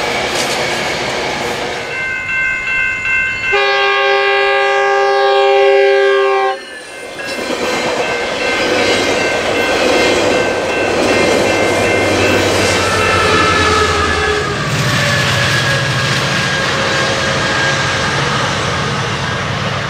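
Commuter trains passing. A diesel locomotive's multi-note air horn sounds for about three seconds, its chord sliding slightly lower in pitch as it goes by. Bilevel passenger coaches then rumble and clack over the rails, and a low diesel engine drone comes in near the end.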